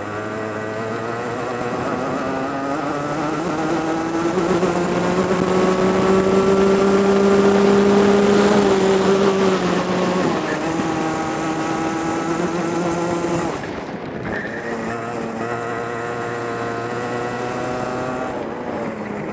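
Racing kart engine heard from onboard, its pitch climbing steadily for about eight seconds. The pitch drops sharply about ten seconds in, holds, drops again a little after thirteen seconds, then climbs once more.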